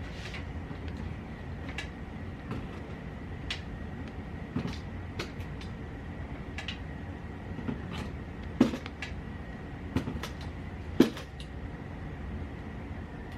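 Scattered clicks and knocks of hand tools and metal parts as the headset top cap bolt is tightened into the star nut, with two sharper knocks in the second half, over a steady low hum.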